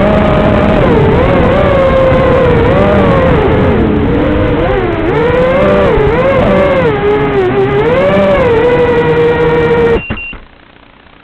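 FPV quadcopter's brushless motors whining, the pitch rising and falling constantly with the throttle. The whine cuts off abruptly about ten seconds in, leaving only a faint hum.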